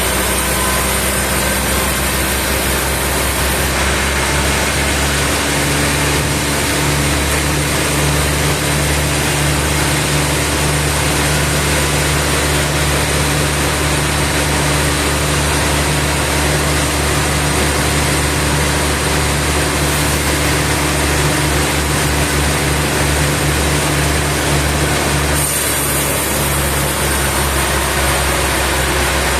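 Engine-driven sawmill machinery running steadily and loudly, its tone shifting about four seconds in and again near the end.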